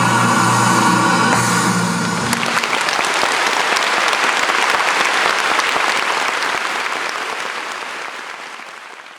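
The song's final held chord, voices over accompaniment, stops about two seconds in. Audience applause follows and fades away near the end.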